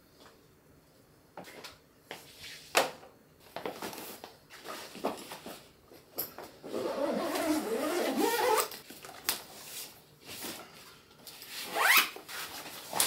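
A bag being packed by hand: scattered knocks and clicks as things are handled, a longer stretch of rustling in the middle, and a zipper pulled quickly near the end, rising in pitch as it runs.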